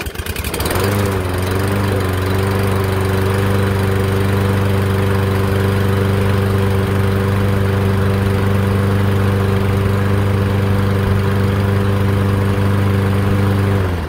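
Toro 22" Recycler walk-behind lawn mower's single-cylinder engine catching on a recoil pull-start, after priming for its first start following winter storage. It settles within a second or two into a steady, even run, then cuts off abruptly near the end.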